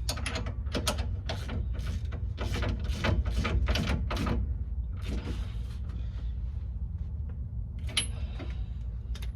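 Wrench tightening the lock nut onto a rear shock's mounting stud: a run of short metallic clicks, about two or three a second, for the first few seconds, then scattered fainter clicks and one sharp click near the end.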